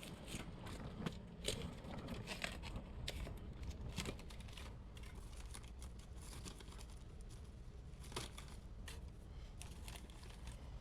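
Faint handling noise: plastic packaging crinkling and scattered light clicks and knocks of drink containers being moved. The clicks are thickest in the first few seconds and again briefly near the end.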